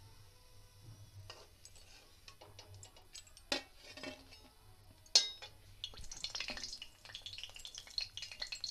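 Steel slotted spoon clinking and clanking against a steel kadhai and plate as fried gujiyas are lifted out of the shallow oil and set down, with two sharp clanks about three and a half and five seconds in. Dense light clattering and crackling fills the last few seconds.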